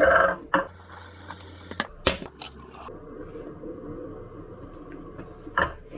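Scattered sharp metallic clicks and knocks of a screwdriver working against an electric unicycle's wheel rim while levering off the tyre, with the loudest knock right at the start.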